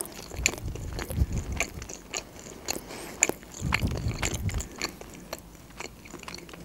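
A person chewing a mouthful of pizza close to a microphone, with many small wet mouth clicks; the heavier chewing comes in two spells, around one second in and again around four seconds in, then eases off.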